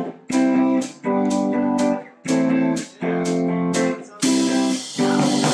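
Electric guitar strumming chords in short, evenly spaced stabs, about three every two seconds, each ringing briefly and then cut off. A bright noisy wash joins about four seconds in.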